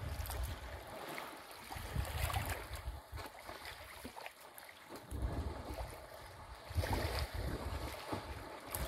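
Wind buffeting the microphone in uneven gusts, over faint splashing and sloshing of water as young elephants wrestle in a waterhole.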